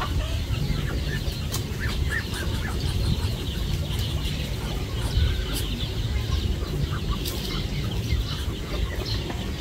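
Chickens clucking now and then in a poultry yard, over a steady low rumble.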